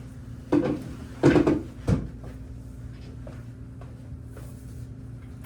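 A patient lying back on a chiropractic treatment table: three knocks and creaks from the table in under two seconds, the middle one loudest.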